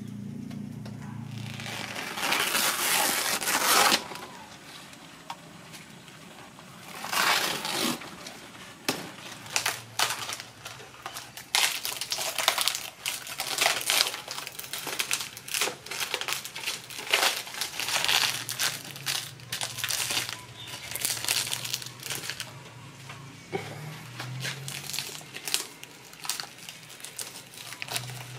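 Fresh green leaves crinkling and rustling in hands as they are folded and pushed into the open end of a bamboo tube, in irregular bursts. The longest and loudest burst comes about two to four seconds in.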